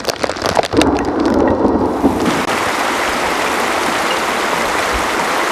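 Steady rushing of water, like heavy rain or fast-running water on the ground. It starts with crackling taps and a low rumble, then settles about two seconds in into an even, constant hiss.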